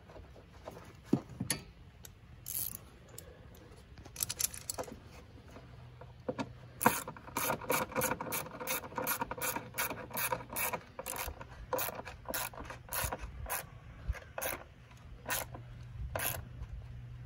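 Socket ratchet clicking as the battery hold-down clamp bolt is snugged tight. A few scattered clicks come first, then a steady run of clicks for the last ten seconds or so.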